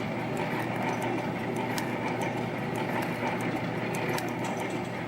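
YHM CF-308 CNC spring coiling machine running, forming small torsion springs from 0.2 mm wire: a steady mechanical clatter with frequent sharp ticks.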